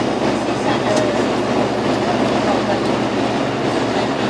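Steady cabin drone of an ATR 72's turboprop engines and propellers during the descent to land: a constant rushing noise with a low, even propeller hum beneath it.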